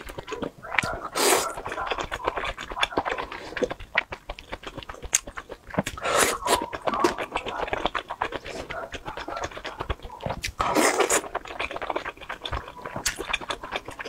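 Close-up wet chewing and mouth clicks of someone eating soft oden fish balls and fish cakes. Three louder, longer wet mouth sounds come about a second in, around six seconds and near eleven seconds.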